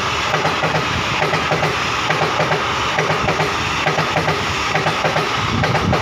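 Coaches of an express train passing at speed close by: a steady rush of wheels on rail, with a fast rhythmic clatter as the wheel sets run over rail joints.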